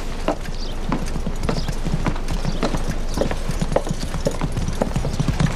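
Horse hooves clip-clopping at a walk, about two hoofbeats a second.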